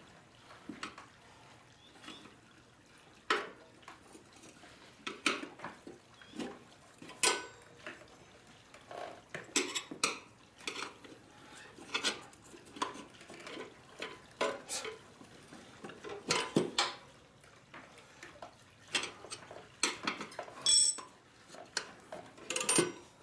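Steel tire irons clinking and scraping against a motorcycle's rear wheel rim as the tire bead is levered off by hand: irregular sharp metallic clinks and knocks, some ringing briefly.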